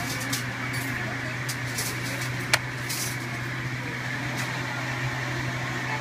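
36-inch industrial ceiling fan running with a steady low motor hum, and a single sharp click about two and a half seconds in.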